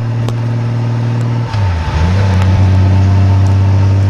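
2002 Honda Gold Wing's flat-six engine and exhaust running at a steady road speed, heard from beneath the bike, with road and wind noise. About a second and a half in, the engine note dips sharply and picks back up a little lower in pitch, then runs louder.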